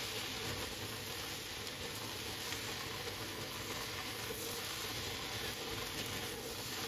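Food sizzling in a hot pan: a steady hiss with faint scattered crackles.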